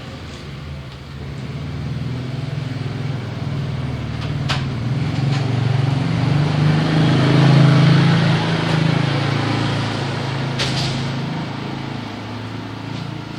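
A motor vehicle passing close by: its engine hum grows louder to a peak about halfway through, then fades away. A couple of sharp clicks are heard along the way.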